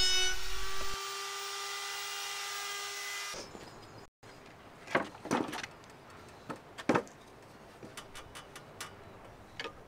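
Electric plunge router running at full speed, rounding over the edge of a plywood panel: a steady high whine, louder for the first second while it cuts, that stops abruptly about three seconds in. After that, a few light wooden knocks and clicks as timber battens are handled against the panel.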